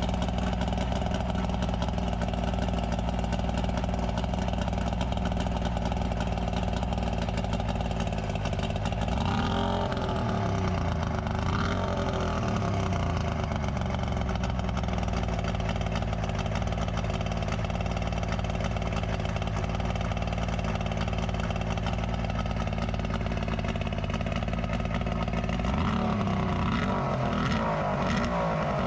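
Mercury 60 hp outboard motor running steadily, its revs rising and falling around ten seconds in and again near the end.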